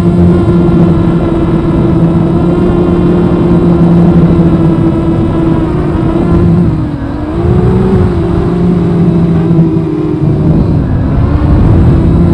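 Onboard sound of a 250-size FPV quadcopter's motors and propellers, a steady loud whine. About seven seconds in the pitch sags briefly as the throttle eases off, then climbs back.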